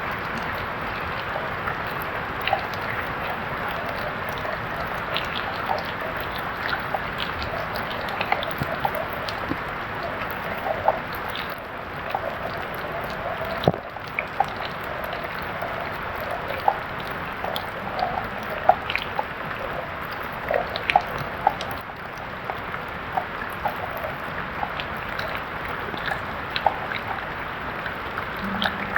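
Steady rain falling, with many irregular sharp drips and patters of water.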